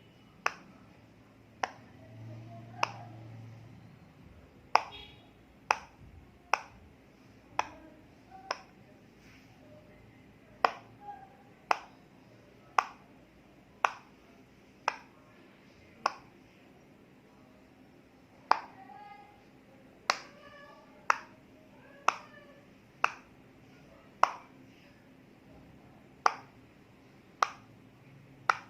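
Silicone pop-it fidget toy bubbles being pressed through one at a time, a sharp single pop roughly once a second.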